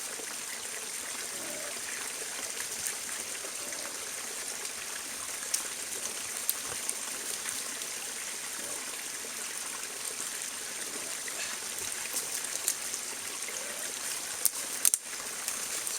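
Small spring-fed stream running and trickling steadily. A few sharp clicks cut through it, the loudest near the end.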